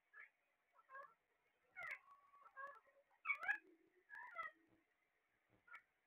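Caged Alexandrine and ring-necked parakeets calling: a string of short calls that bend up and down in pitch, the loudest about three seconds in.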